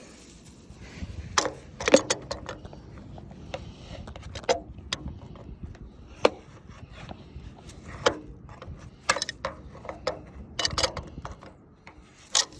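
Scattered sharp knocks and clicks, about one every second or two, from tools and fittings being handled at an old water heater's drain.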